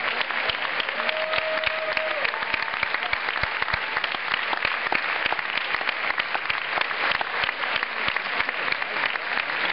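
Large audience applauding: a dense, steady patter of many hands clapping. A brief held tone sounds faintly over it about a second in.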